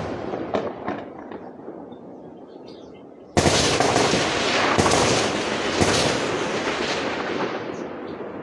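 Gunfire: the fading tail of a shot at the start, then a loud report a little over three seconds in and several more sharp shots over the next few seconds, each trailing off in a long rolling echo.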